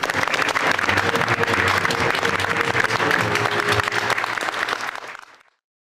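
Audience applauding with music playing underneath, fading out about five seconds in.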